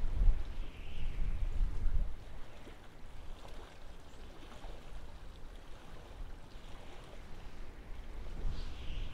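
Wind rumbling on the microphone, gusting strongly at the start and again near the end and easing off in between, with a few faint high chirps.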